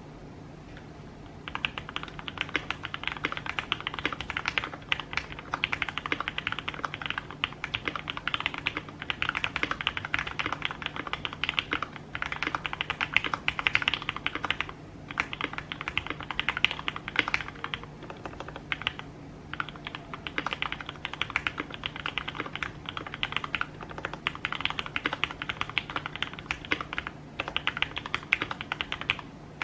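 Fast continuous typing on a Tofu60 60% mechanical keyboard with Gateron KS-3X47 Black linear switches lubed with Krytox 205g0, an FR4 plate and foam-filled case: a dense patter of keystrokes that starts about a second and a half in, with brief pauses near the middle and toward the end.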